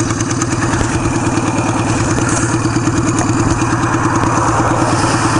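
Motorcycle engine, the uploader's 1975 Kawasaki KZ400 parallel twin, idling steadily with an even, rapid pulse.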